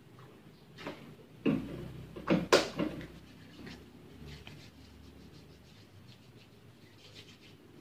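Handling noise: several sharp knocks and snaps in quick succession, from about one to three seconds in. These are followed by faint, soft rustling as hands are rubbed together with alcohol-based hand rub.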